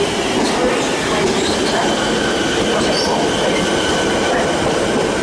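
Siemens Nexas electric suburban train running along the platform at close range: a continuous rumble of wheels on rail with a steady high whine over it.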